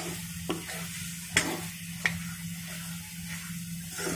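Steel ladle stirring eggplant into a frying masala in a pan: a steady sizzle with a few sharp clinks of the ladle against the pan, the loudest about a second and a half in.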